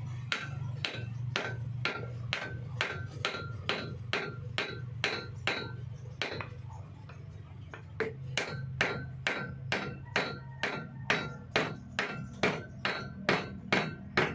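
Hammer striking a wooden block set on the end of a water pump motor's rotor shaft, tapping the new bearing into place. The blows are steady, about two a second, with a short pause a little before halfway.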